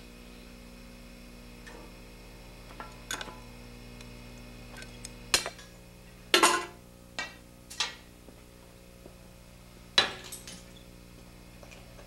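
Scattered sharp clinks and taps from handling glassblowing gear (blowpipe and glass) while a blown glass ornament is set down, about seven in all, the loudest about five, six and a half and ten seconds in. A faint steady hum runs underneath.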